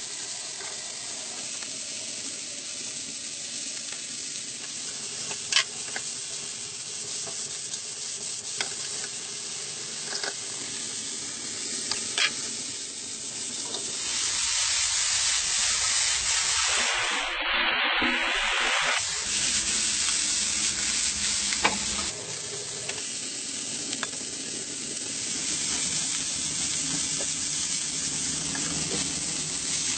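Slices of meat sizzling in a frying pan over an open wood fire, a steady frying hiss with a few sharp clicks. The sizzle grows louder for several seconds about halfway through and again near the end.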